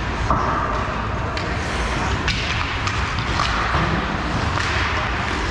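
Ice hockey game sounds in an arena: skates scraping, with scattered knocks of sticks and puck and indistinct voices over a steady rink hum.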